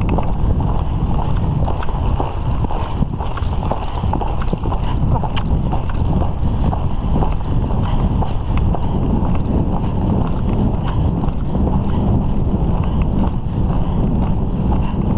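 Horse's hooves striking a sandy track under a rider, a continuous run of hoofbeats over a steady low rumble.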